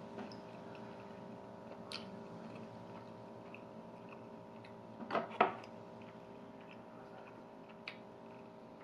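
Quiet closed-mouth chewing of toasted bread, with a few faint mouth clicks and two slightly louder smacks a little past halfway, over a steady low hum.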